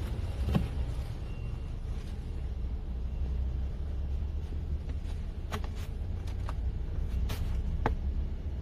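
Several short clicks of buttons pressed on a Kia K9's rear-seat climate control panel, bunched between about five and eight seconds in as the panel is switched on, over a steady low rumble inside the car's cabin.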